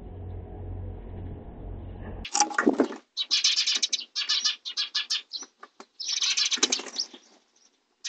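Myna giving loud, harsh rasping calls in a string of bursts, starting about two seconds in after a low hum and stopping shortly before the end.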